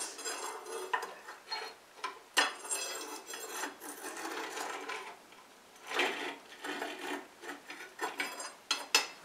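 A long metal oven tool scraping over the ash-covered brick floor of a wood-fired bake oven, with irregular clinks and scrapes as earthenware bread pans on trivets are pushed toward the back and settled by hand.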